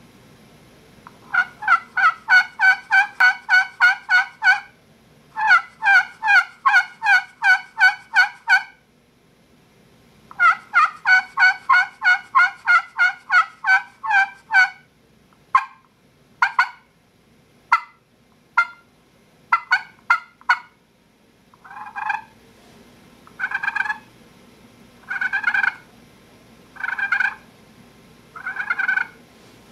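Titanium-surfaced turkey pot call worked with a striker, imitating a turkey. It gives three long runs of quick yelps, then several single sharp clucks, then a series of longer, rougher purr-like notes.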